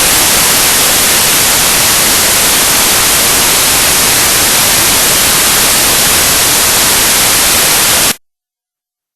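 Loud, steady static hiss that cuts off abruptly about eight seconds in, leaving dead silence.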